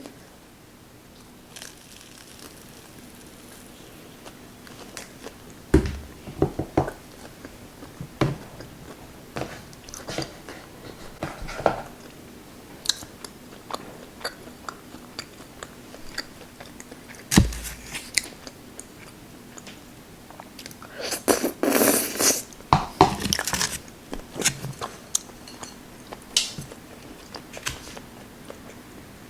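Close-miked eating: chewing and biting of spicy Korean rice cakes and their fried sides, with scattered crunches and small clicks. There is a busier stretch of crunching about three-quarters of the way through.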